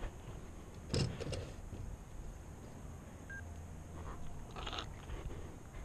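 Handling noise from a camera tripod: a sharp knock about a second in, then a few light clicks and a brief rustle.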